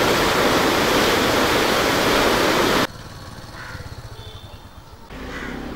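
Turbulent floodwater rushing and churning, a loud steady noise that cuts off abruptly about three seconds in, leaving faint outdoor ambience.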